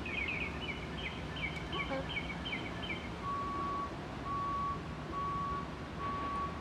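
A small bird chirps in quick runs of short falling notes for the first three seconds. About three seconds in, a vehicle's reversing alarm starts beeping, one steady tone about once a second, over a low engine hum.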